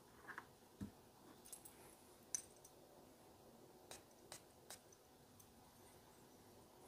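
Near silence with a few faint, sharp clicks and taps from handling a glass cologne bottle and a paper scent strip, the sharpest about two and a half seconds in.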